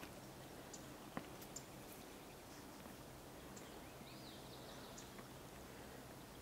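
Quiet outdoor ambience: a faint steady hiss with a few soft clicks about a second in and a brief high chirp around four seconds in.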